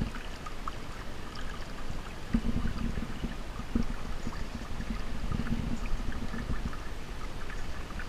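Shallow brook water trickling and splashing with small drips and clicks as someone wades along it, with a few dull low thumps at irregular moments.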